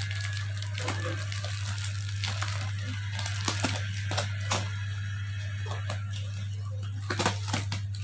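Scattered light clicks and taps of things being handled during an unboxing, with a short cluster about seven seconds in, over a steady low electrical hum.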